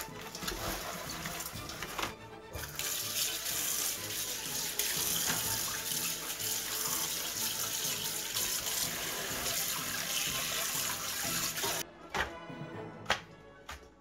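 Water running from a kitchen tap into a sink, with a short break about two seconds in. It shuts off abruptly about twelve seconds in, over background music.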